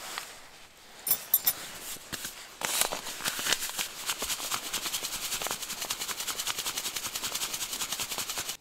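A few light clicks about a second in. Then, from about three seconds in, hands rub quickly back and forth against each other, a steady rhythmic swishing of several strokes a second.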